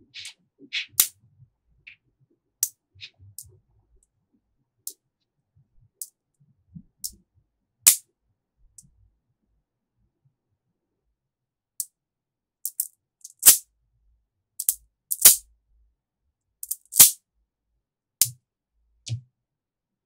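Small magnetic balls clicking sharply as they snap onto one another, in separate clicks with pauses between. After a few quiet seconds past the middle comes a run of louder clicks.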